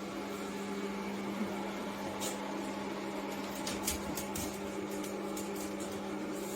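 A steady mechanical hum with a few light clicks between about two and four and a half seconds in.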